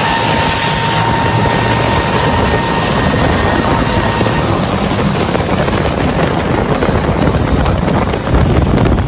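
Loud, steady vehicle noise with a high whine that fades out about three seconds in, and a fainter falling whine partway through.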